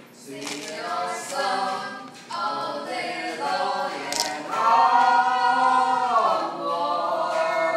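A group of voices singing together unaccompanied, in short phrases with a long held note in the middle that is the loudest part.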